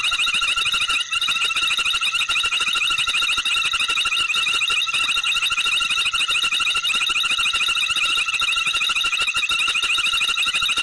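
Steady, high-pitched night chorus of many calling creatures, fast trilling voices overlapping without a break.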